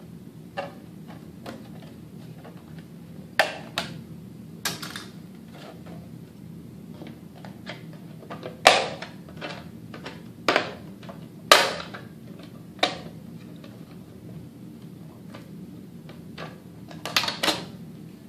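Scissors cutting through the thin plastic of an armour shin piece as its edge is trimmed: irregular sharp snips and cracks every second or few, the two loudest near the middle.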